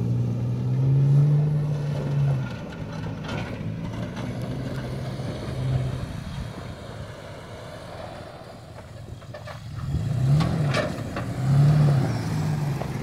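Toyota Tacoma pickup's engine under low-speed crawling throttle, revving up and back down in short bursts in the first couple of seconds and again near the end, running quieter in between. A few short sharp knocks are heard near the end.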